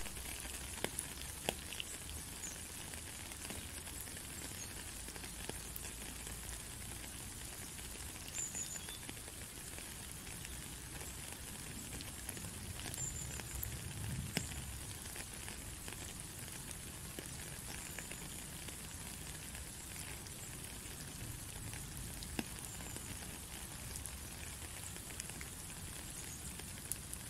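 Steady rain falling on puddles and wet ground: an even hiss with occasional louder individual drips.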